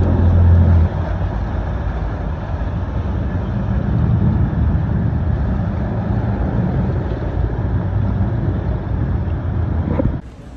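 Marine towboat's engine running, with propeller wash churning the water: a steady low drone that eases slightly about a second in and cuts off near the end.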